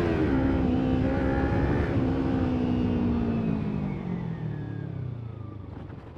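Kawasaki Ninja 300's parallel-twin engine running through an Arrow exhaust with its dB killer fitted. It shifts up at the start, pulls briefly, then its pitch falls steadily and it grows quieter as the throttle is rolled off and the bike slows.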